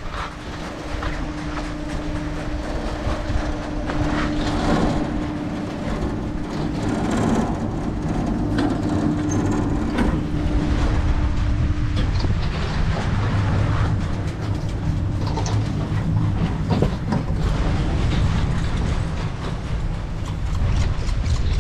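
Chairlift machinery running at the loading station: a steady hum, with repeated clacks and rattles as chairs and the haul rope pass over the station wheels. The hum stops about halfway through, and a low rumble takes over as the chair rides up.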